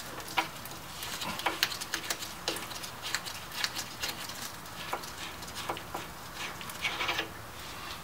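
Ratchet wrench with a half-inch socket clicking in short, irregular runs as a rear brake caliper mounting bolt is backed out, with light metal clinks and taps in between.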